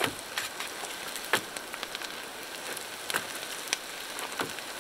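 Sliced potatoes and onions frying in olive oil in a cast iron pan: a steady sizzle with a sharp pop now and then.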